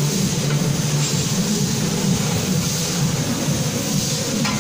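Steady machinery noise of a factory floor: a low hum with a hiss over it, with a brief rattle of small clicks near the end.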